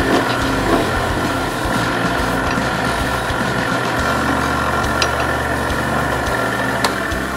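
Small benchtop lathe running steadily with a constant motor whine, spinning an acrylic duck call insert blank, with a few light clicks.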